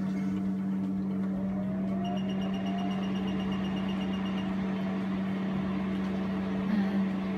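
Q-switched Nd:YAG laser machine humming steadily, with a faint rising whine as it starts up. Two seconds in, a rapid run of short high beeps lasts about two and a half seconds while it boots.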